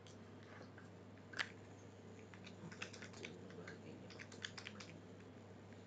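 Faint, irregular clicks of calculator keys being pressed as a division is keyed in: one sharper click about a second and a half in, then a quick run of presses in the middle.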